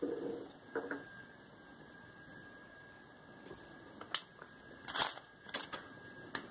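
A few small clicks and taps of handling noise, sharpest and loudest about four to six seconds in, over a faint steady high-pitched hum.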